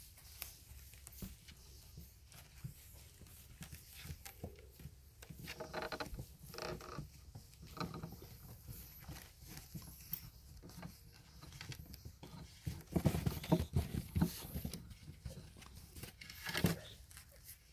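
Shar-pei puppies moving about on a rubber mat and wooden boards: soft pattering, scuffling and small knocks, with a louder bout of thumps and rustling about thirteen seconds in.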